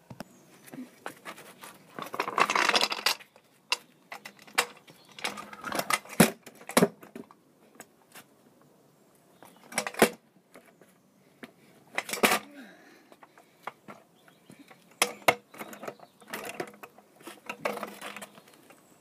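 Stunt scooter clattering on paving: irregular sharp knocks from the deck and wheels, with a few short stretches of rolling or scraping.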